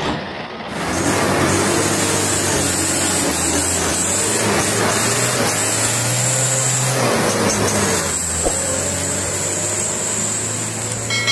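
Loud truck engine and exhaust running steadily, its pitch rising a little about six seconds in.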